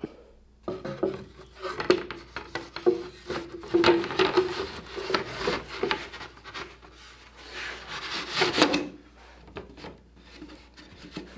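Wooden tambour slats of a small rolltop desk scraping and clicking in their grooved channel as the tambour is pushed up and down by hand, in several separate strokes. Wood rubs on wood where the fit is tight in spots.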